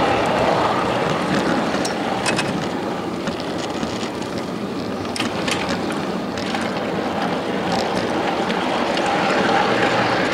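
Ride-on miniature railway train running along the track, a steady rumble of wheels on rail with a few short sharp clicks.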